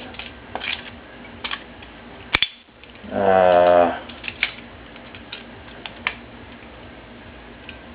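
Butterfly knife being flipped: scattered sharp clicks and clacks of the handles and latch, with one loud click a little over two seconds in. A short hummed vocal sound from the person comes about three seconds in.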